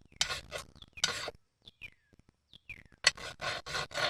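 Flat file rasping in short strokes across the chainsaw's bar mounting face, dressing it flat so the bar seals over the oil passage; the gouged, uneven face had let the saw leak oil. The strokes come in two runs with a pause of about a second and a half between them, and two short falling chirps sound in the pause.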